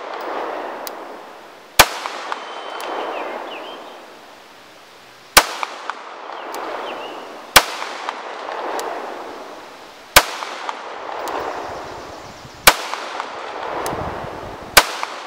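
CZ 75 B pistol firing six single shots at an unhurried pace, about two to three and a half seconds apart, each shot followed by a rolling echo that fades over a second or two.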